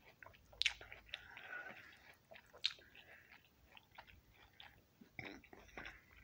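A person chewing orange slices: irregular small mouth clicks and smacks, the two sharpest about half a second and about two and a half seconds in.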